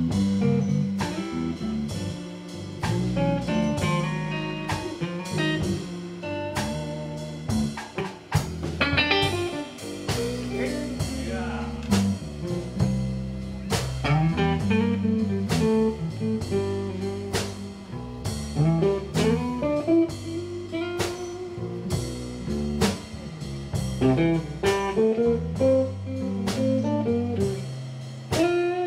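Live blues band: an electric guitar plays a lead line with bent notes and a fast rising run about nine seconds in, over electric bass and a drum kit.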